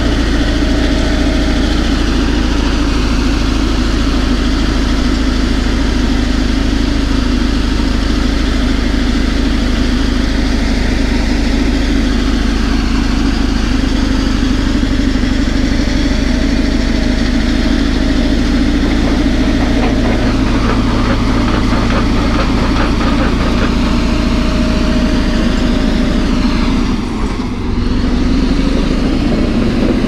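Caterpillar D11 bulldozer's diesel engine running loud and steady under heavy load as the machine pushes a full blade of dirt and rock, dipping briefly near the end.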